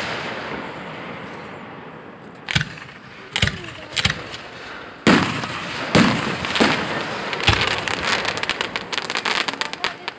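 Aerial firework shells bursting overhead: a run of sharp booms with echoing tails, several between about two and eight seconds in, then a dense rapid crackling near the end.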